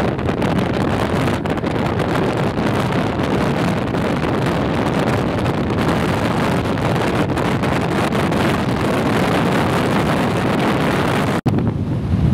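Steady rush of wind noise buffeting the microphone. It cuts out for an instant near the end, then a duller rushing continues.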